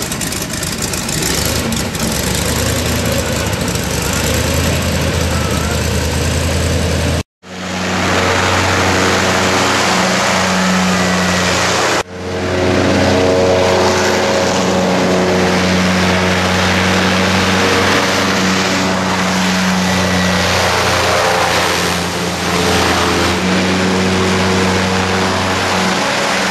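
Airboat's engine and large air propeller running at speed as the boat races across the water, a loud steady drone. The sound breaks off briefly twice.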